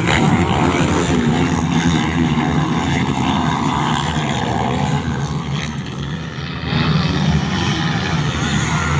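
Several motocross dirt bikes racing around a dirt track, their engines running hard together in a steady, loud mix.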